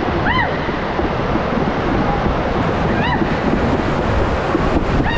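Multi-rider raft rushing down the enclosed tube of a family water slide: a loud, steady rush of water with wind buffeting the microphone. Riders let out short high shrieks twice, about a third of a second in and about three seconds in.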